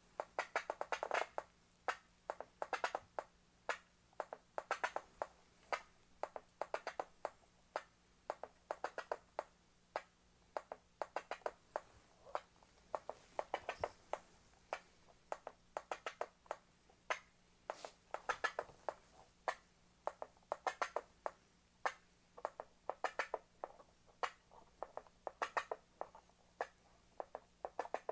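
Korg Volca Beats drum machine playing a loaded pattern: a repeating run of short, clicky drum hits with louder clusters about every two seconds.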